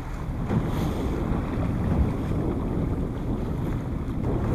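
Wind buffeting the microphone on a small motorboat moving slowly, with the boat's engine and water running beneath as a steady rumble.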